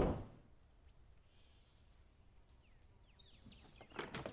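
Knuckles knocking on a wooden panelled door, the last knock falling right at the start. After that, faint birds chirping over quiet outdoor ambience, and a few sharp clicks about four seconds in.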